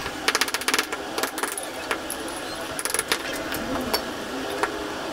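Sharp metallic clinks and rattles from steel parts being handled and set down on an iron block, with a fast run of clicks about a second in.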